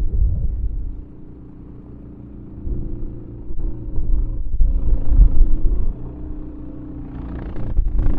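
Honda HSM1390i hybrid snowblower's single-cylinder iGX390 engine running with a low rumble, its loudness swelling and easing three times.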